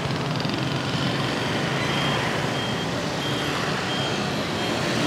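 Steady street traffic of motorbikes and cars. Through the middle, a high electronic beep repeats about every half second, a vehicle's warning beeper.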